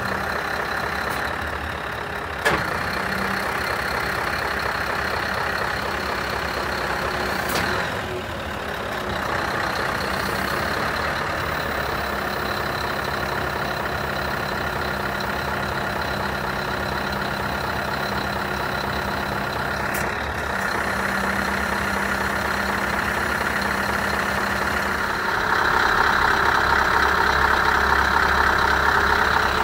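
Scania hooklift truck's diesel engine running with its hydraulics working the hook arm up and back, a steady mechanical drone with a few sharp clicks. About 25 seconds in it gets louder and higher-pitched as the load on the hydraulics and engine rises.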